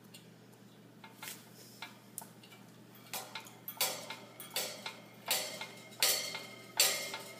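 A cockatoo playing in its wire cage, knocking and clanking against the cage or a toy: a few faint knocks at first, then from about three seconds in a run of louder clanks, each ringing briefly, coming roughly once or twice a second.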